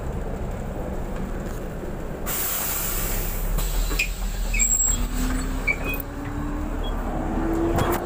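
Bus engine rumbling, with a loud hiss of compressed air from the bus's pneumatic system starting about two seconds in and lasting about a second. A few short high beeps and clicks follow, and in the second half the engine tone slowly rises in pitch.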